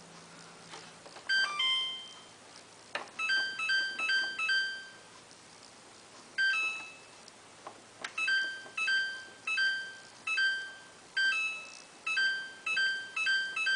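Samsung WF8804RPA washing machine control panel beeping as the program dial is turned and option buttons are pressed: a short falling three-note chime, then runs of short electronic beeps about two a second, with faint clicks of the controls.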